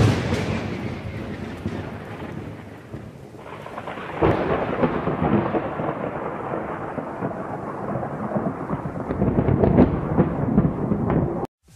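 Thunderstorm: a loud thunderclap at the start that rolls away into a rumble, then another roll of thunder about four seconds in, over steady rain. It cuts off suddenly near the end.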